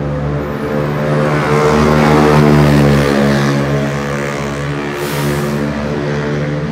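A vehicle passing close by: a steady engine or motor hum that swells and then fades, with a brief hiss about five seconds in.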